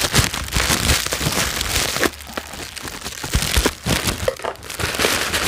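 Plastic bubble-wrap packaging crinkling and crackling as it is handled and cut open with scissors: a dense run of crackles with a couple of brief lulls.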